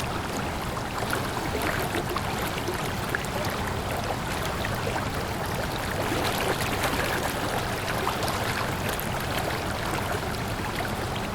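Running water flowing steadily, like a stream, with many small splashes and trickles over a constant rush.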